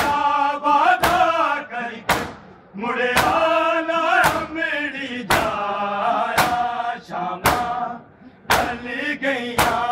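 Men's voices chanting a Punjabi noha in long, drawn-out lines, with the crowd's open-handed chest-beating (matam) landing together as a sharp slap about once a second in time with the chant.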